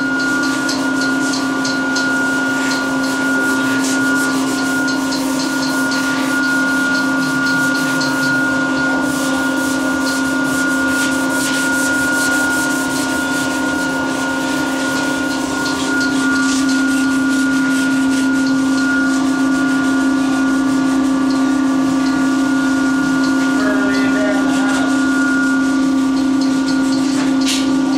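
Sandpaper on a sanding block rubbing back and forth over primed auto body panels, in quick repeated strokes, over a steady hum.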